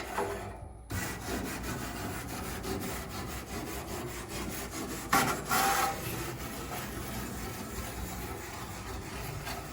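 Grill brush scraping back and forth across hot propane-grill grates, knocking off burnt-on residue in repeated rough strokes, one louder about five seconds in.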